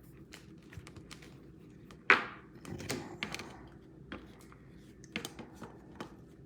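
Trading cards being handled on a table: scattered light clicks and taps, with one louder sharp knock about two seconds in.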